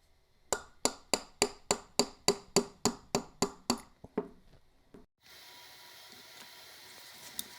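Small hammer tapping a tight clock gear-train part, about a dozen sharp, evenly spaced blows at roughly three a second, each ringing briefly. The part is stuck tight.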